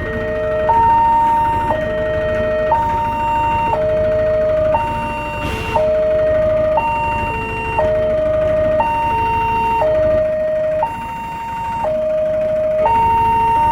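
Two electronic railway level-crossing warning alarms sounding together out of step. Each swaps between a higher and a lower tone about once a second, so the two patterns clash. A short hiss cuts through about five seconds in.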